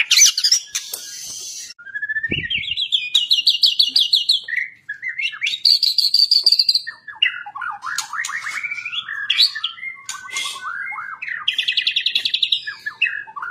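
White-rumped shama (murai batu) singing a loud, varied song of rapid trills of repeated notes, rising phrases and harsh buzzy notes. This is the fierce, energetic 'fighting-style' song (gaya tarung) that songbird keepers prize.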